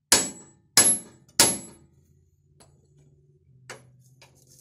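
Three ringing hammer blows on steel about two-thirds of a second apart, then one lighter knock near the end: the leaf spring being knocked forward to line it up with its mounting hole.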